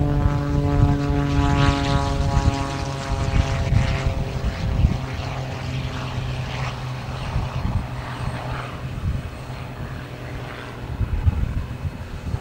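Extra 330LX aerobatic plane's six-cylinder Lycoming engine and propeller droning in flight, the pitch sliding lower over the first few seconds and then holding steady.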